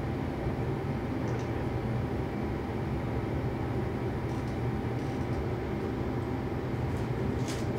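Steady low hum and hiss of background room noise, like an air conditioner or fan running, with no distinct events.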